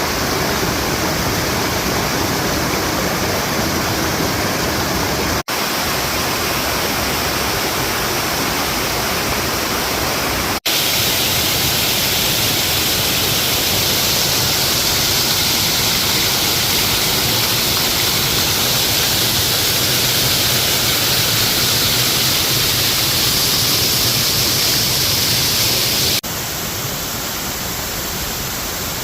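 Waterfall pouring: a loud, steady rush of falling water. It breaks off for an instant three times, and after each break the rush sounds different.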